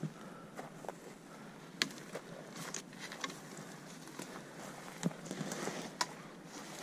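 Footsteps pushing through low brush and dead branches: irregular crackles and snaps of twigs with rustling vegetation, the sharpest snaps about two seconds in and again near the end.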